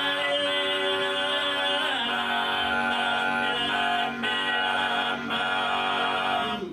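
Sardinian canto a tenore: four men singing unaccompanied in close harmony, holding long chords. The singing stops at the very end.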